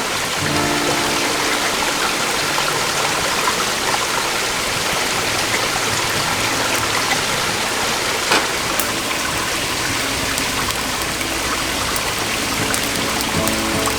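Mountain valley stream rushing steadily over rocks, an even wash of water noise. There is one short tick about eight seconds in.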